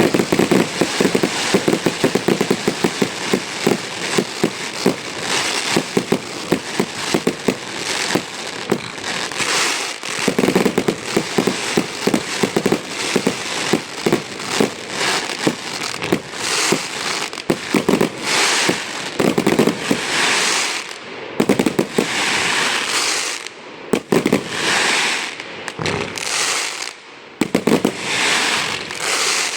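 Aerial fireworks display going off continuously: a dense barrage of bangs and reports mixed with surges of crackling and hissing from crackling-star shells.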